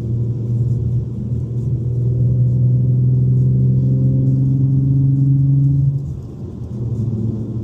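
Car engine heard from inside the cabin during a drive, its note rising slowly under steady acceleration, then dropping and quieter about six seconds in.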